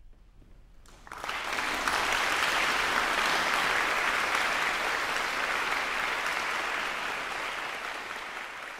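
Concert audience applauding, breaking out suddenly about a second in and easing slightly near the end.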